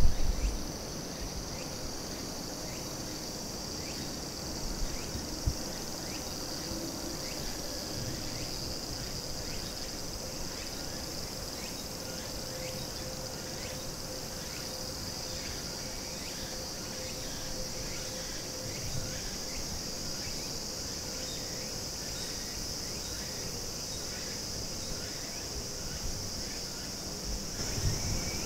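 Summer insects buzzing in a steady, high-pitched chorus.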